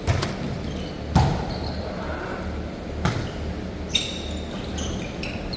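Four sharp thuds at uneven intervals, about a second or two apart, over a steady low hum.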